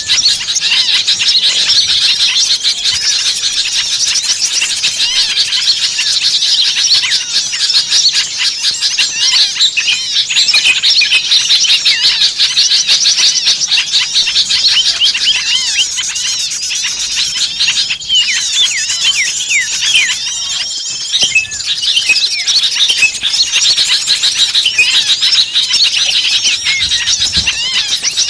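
Dense, frantic chorus of many small songbirds chirping and calling over one another in rapid, high-pitched notes, easing a little about two-thirds of the way through. This is the noisy mixed-flock chatter played as a lure to draw small birds in.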